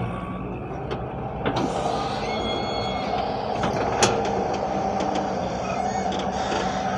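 Hyundai 170 excavator's diesel engine running steadily, with a thin hydraulic-like whine and two sharp metallic clanks, one about a second and a half in and a louder one about four seconds in.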